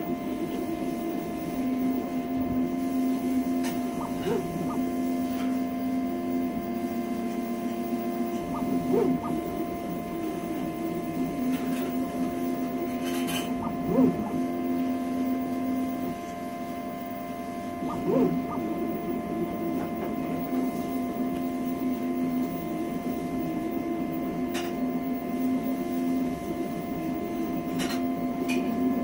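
Homemade CoreXY conveyor-belt 3D printer printing: its stepper motors whine in tones that shift with each move, over a steady hum. A few brief chirps stand out, the loudest about fourteen seconds in.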